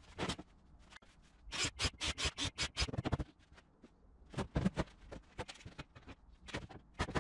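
Short scrapes and knocks of wooden boards being slid and set in place on a table, coming in irregular clusters, with a quick run of about eight strokes in the first few seconds.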